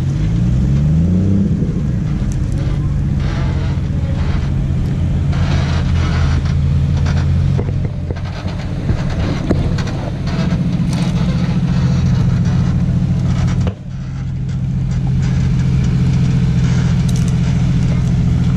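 Off-road 4x4's engine running steadily, revving up and back down about a second in. The sound cuts out abruptly for an instant about fourteen seconds in.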